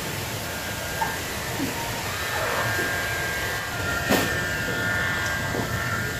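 Wind rumbling on the microphone, under a steady high-pitched hum, with a brief sharp sound about four seconds in.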